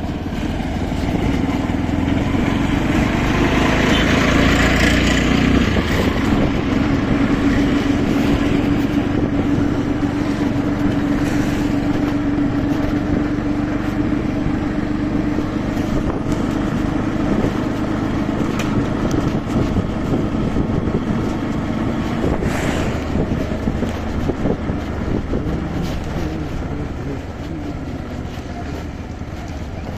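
A motor vehicle's engine running steadily, with a held hum that is strongest in the first half and eases toward the end.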